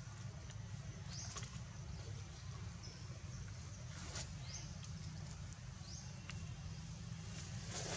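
Outdoor woodland ambience: a short, high, rising chirp repeats every second and a half or so, with a couple of brief dry-leaf rustles about halfway through and near the end, over a steady low hum.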